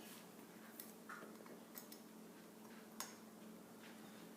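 Near silence broken by a few faint, sharp metallic clicks and taps, the loudest about three seconds in: a screwdriver working a small part of a Remington Fieldmaster 121 rifle down into its hole.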